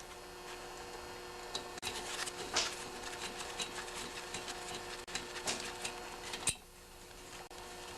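Scattered light clicks and clinks of hand tools and small metal engine parts being handled and set down, over a faint steady hum.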